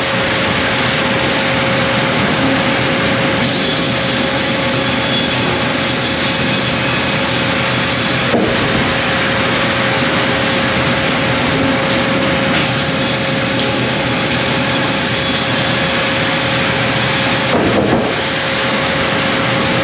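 Large sawmill band saw headrig running and sawing through a log, a loud steady noise with a constant whine underneath. The noise changes character a few times, with brief shifts about 8 and 18 seconds in.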